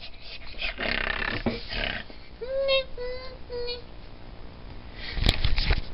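Rustling and bumping of the camera against a dog's fur. About halfway through come three short, slightly falling high vocal notes.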